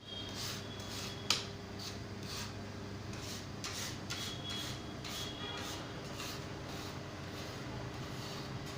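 A bakery planetary mixer running with a steady motor hum, while its beater scrapes and swishes through the bowl about twice a second; one sharp click about a second in.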